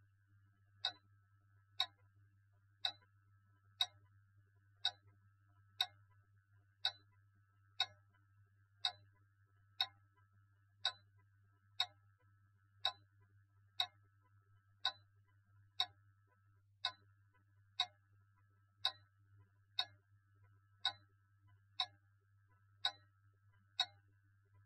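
A clock ticking steadily, one sharp tick about every second, over a faint low hum.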